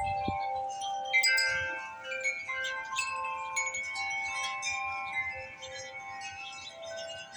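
Wind chimes blown by strong wind, ringing irregularly with many overlapping notes that sustain. A fresh cluster of strikes comes about a second in. A brief low rumble of wind on the microphone is heard at the start.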